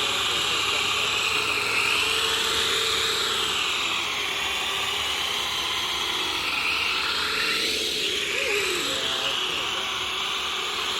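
Modovolo Lift multirotor drone's propellers whining in flight, the pitch wavering up and down as the motors work against heavy wind, with wind noise underneath.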